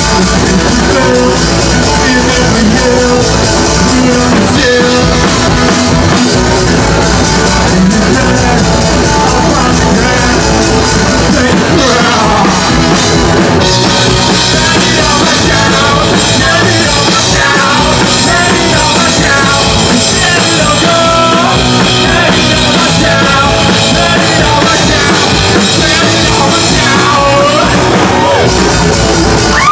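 Two-piece punk rock band playing live and loud: electric guitar through a Marshall amp and a drum kit, with the guitarist singing lead vocals.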